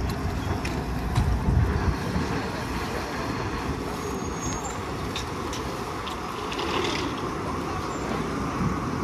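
Passenger water shuttle's engine running steadily as it comes alongside the dock, with wind gusting on the microphone for the first two seconds.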